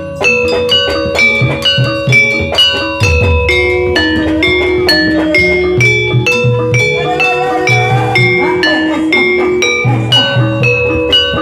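Javanese gamelan music accompanying a kuda lumping (ebeg) dance: struck metallophones ring out a steady run of repeated pitched notes over regular hand-drum beats.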